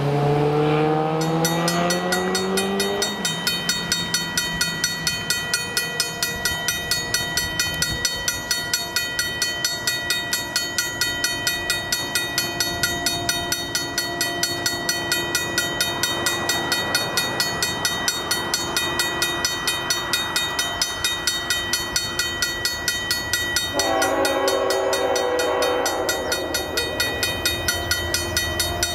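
Railway grade-crossing bell ringing steadily at several strikes a second for an approaching CN freight train. About 24 s in, the locomotive's horn sounds for about two and a half seconds. At the start, a road vehicle's engine rises in pitch and fades out.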